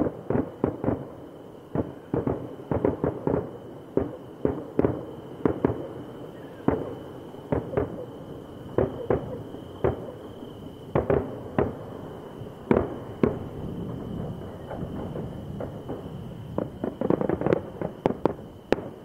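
Fireworks display: aerial shells bursting in a rapid, irregular string of sharp bangs, several a second, thickening into a dense cluster near the end.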